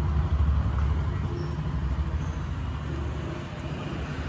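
Electric rotary polisher buffing the car's paintwork, heard from inside the cabin as a steady low motor drone.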